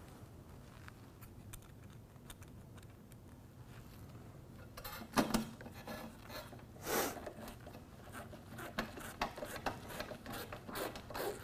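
Faint ticks and scrapes of a hand Phillips screwdriver turning screws into a metal mounting bracket on top of a window air conditioner. There are two louder handling sounds about five and seven seconds in, then a run of small clicks near the end.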